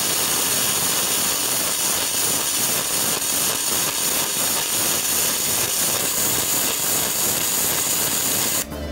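Seibi EG-M100 gasless semi-automatic welder laying a bead with flux-cored wire: a steady, dense arc crackle with spatter that stops abruptly near the end. By its sound the wire feed seems not to be keeping up with the arc.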